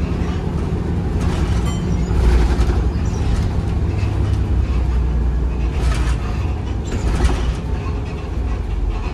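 Volvo B7RLE single-deck bus heard from on board: its six-cylinder diesel engine running with a steady low drone, and a few brief rattles from the body and fittings.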